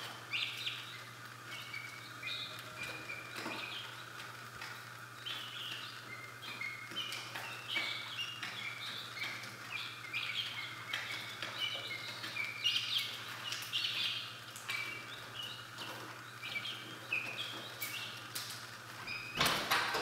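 A brood of young game-bird chicks (guinea keets, pheasants and prairie chickens) peeping, with many short, high chirps overlapping over a steady low hum. A loud clatter comes near the end.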